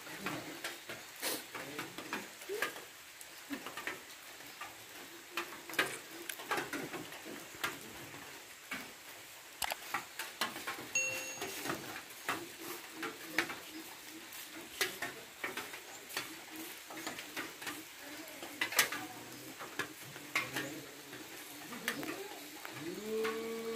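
Outdoor ambience of irregular sharp clicks and taps, with faint low calls in the background.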